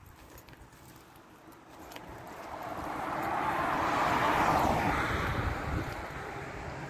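An SUV driving past close by on the road, its tyre and engine noise swelling to a peak about four seconds in and then fading as it goes away.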